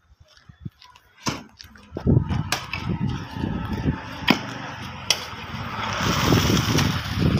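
Hand hoes striking and scraping loose clay soil in a trench, a few sharp knocks over a busy street din, with a vehicle growing louder near the end.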